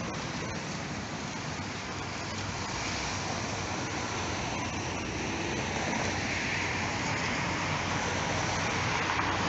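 Tram approaching on its rails and passing close by: a steady rolling rush of wheels on track that grows louder from about halfway through, mixed with car traffic on the adjacent road.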